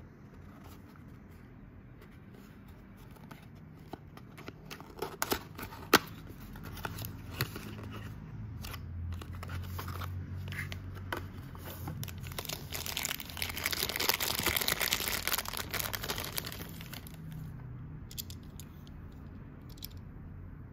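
Small cardboard toy-car box being opened, with a few sharp snaps and clicks, the loudest a single snap about six seconds in. Then the thin clear plastic packaging crinkles and rustles for several seconds as a die-cast model car is slid out and freed from it, dying away a few seconds before the end.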